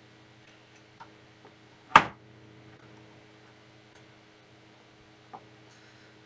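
Plastic LEGO bricks clicking as they are handled and pressed onto a small build: a few faint clicks and one sharp click about two seconds in, over a low steady hum.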